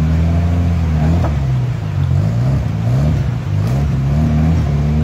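Off-road tube-frame buggy's engine revving hard and unevenly, its pitch rising and falling several times, under load as the buggy climbs a steep bank out of a river.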